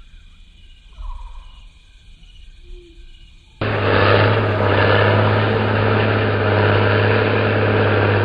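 A loud, steady engine running. It starts abruptly a little past halfway and holds level with a strong low hum.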